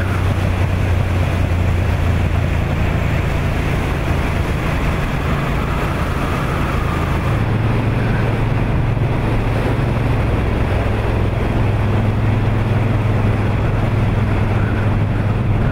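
A motor vehicle's engine running steadily at speed, with wind rushing over the microphone. Its low hum shifts slightly in pitch a couple of times, about seven and twelve seconds in.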